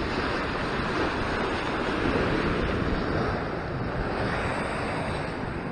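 Ocean surf surging and breaking against a rock ledge, a steady wash of white water, with wind buffeting the microphone.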